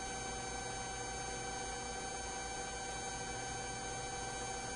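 Steady hiss with a faint, unchanging hum of several fixed tones: the open radio and intercom audio feed between transmissions.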